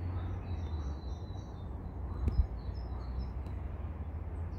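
Faint small birds chirping in short, repeated high calls over a steady low hum, with a single light click about two seconds in.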